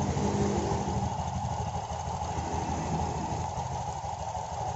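Honda Genio scooter's 110 cc single-cylinder engine idling steadily with the CVT cover off and the drive belt and clutch turning. It runs smooth, without the jingling rattle from the clutch now that it has been repaired.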